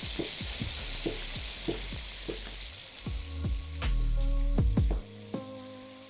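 Chef's knife slicing celery on a wooden cutting board in even cuts, about three a second, over the steady sizzle of pork tenderloin frying in a pan. Background music comes in about halfway through.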